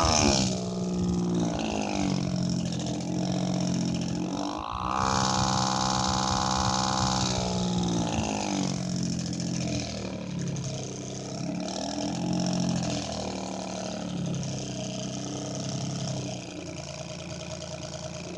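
Desk fan motor slowed and released by a finger pressed against it, imitating a two-stroke Detroit Diesel at full throttle. Its pitched hum drops sharply at the start, then repeatedly sags and climbs back, like an engine shifting through gears.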